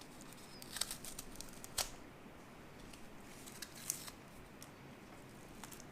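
Faint handling of a small coffee packet being opened: a few sharp clicks, about a second in, near two seconds and near four seconds, over light rustling.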